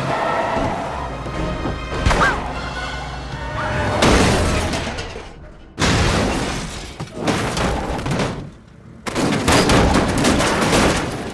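Action-film soundtrack from a car-chase scene: music mixed with several sudden loud crashes and booms, each fading before the next.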